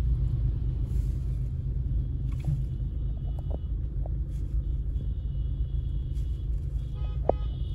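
Steady low rumble of a car's engine and running gear, heard from inside the cabin while creeping along in slow traffic, with a brief click near the end.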